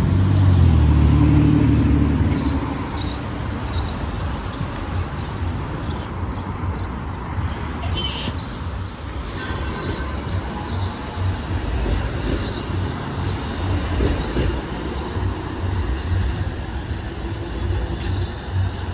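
TTC streetcar running on its rails, loudest in the first couple of seconds, then a steady rumble with a faint, thin high wheel squeal coming and going.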